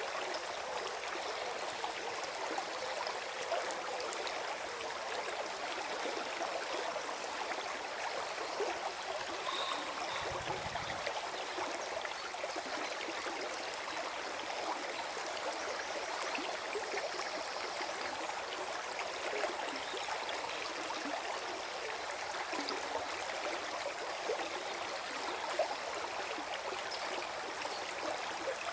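Small forest stream running and gurgling over stones, a steady, even flow.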